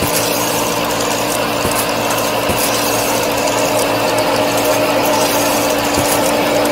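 Miniature model wheat thresher running: its belt-driven mechanism makes a steady mechanical whir with a constant hum.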